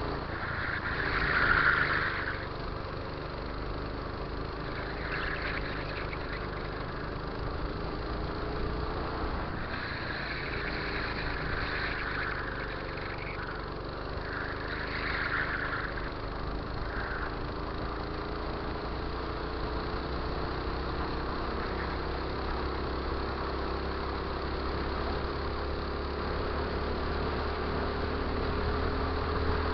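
Go-kart engine running on track, its pitch rising and falling slowly with the throttle through the corners. Several brief louder bursts of higher-pitched noise ride over it, the loudest about a second and a half in.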